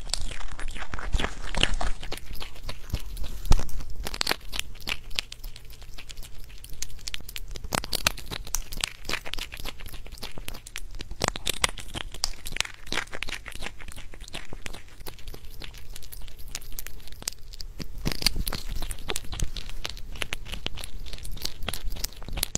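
A bushbaby (galago) nibbling and chewing a small piece of food right at a clip-on microphone: a close, steady run of small crunching clicks and tearing sounds.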